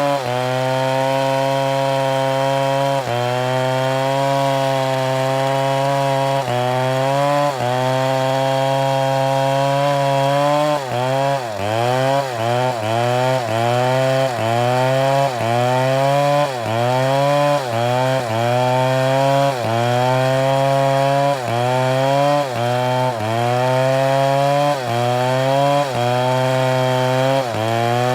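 Chainsaw running at high revs while cutting oak. The engine note is steady at first, then sags and recovers a few times, and from about the middle it dips roughly once a second as the chain bites into the wood under load.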